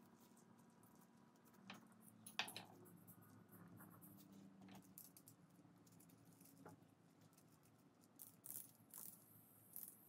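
Faint, scattered clicks and clinks of a small brass clock movement and its parts being handled with gloved hands. The loudest clink comes about two and a half seconds in.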